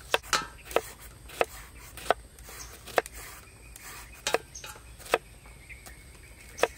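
Kitchen knives slicing small round green eggplants against a thick wooden chopping board: about ten sharp, irregular knocks as each blade cuts through and strikes the wood.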